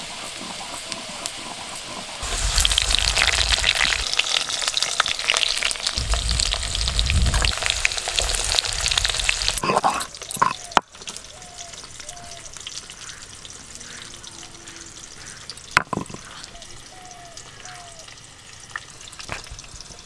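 Food frying in hot oil in a pan over a wood fire: a loud crackling sizzle starts suddenly about two seconds in and dies down about ten seconds in. After it come a few sharp clicks.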